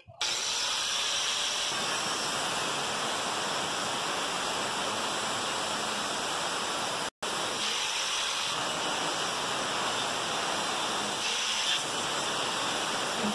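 Electric angle grinder's cut-off disc grinding through the thin perforated steel drum of a washing machine, a steady, even grinding noise that breaks off for an instant about halfway.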